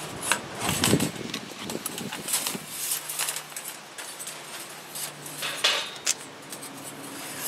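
Paper towel rubbing along the oily steel blade of a 100-foot tape measure, with scattered light clicks and rattles as the thin blade shifts on a ribbed plastic surface.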